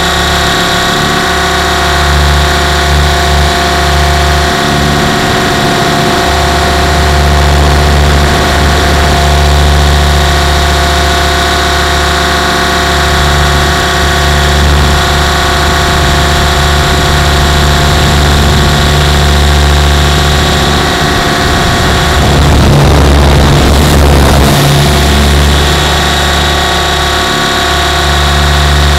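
Compass 6HV radio-controlled helicopter in flight, heard from a camera mounted on its frame: a steady whine made of several even tones from the motor and drivetrain over the low drone of the spinning main rotor. About three-quarters of the way through, a louder rushing noise rises for about three seconds.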